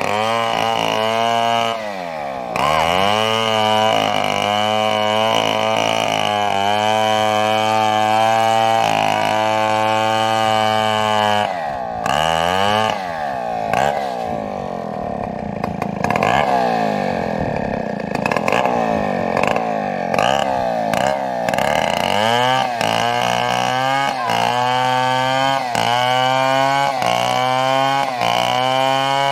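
Two-stroke chainsaw running hard as it cuts a fallen coconut trunk into lumber. Its engine speed wavers and drops in the middle stretch as the chain takes load, and near the end it rises and falls about once a second.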